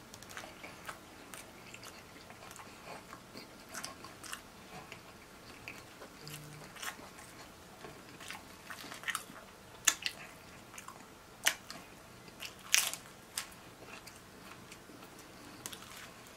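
A person chewing and biting pizza, close-miked: soft wet chewing and mouth clicks with frequent small crunches, and a few sharper, louder crunches in the second half.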